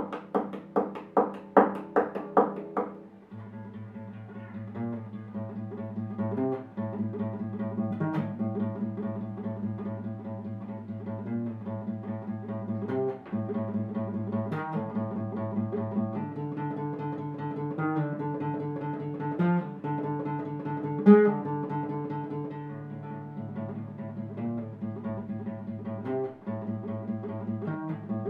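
Classical guitar played solo: it opens with a quick run of loud repeated chords for about three seconds, then goes on with softer picked arpeggios over a bass line.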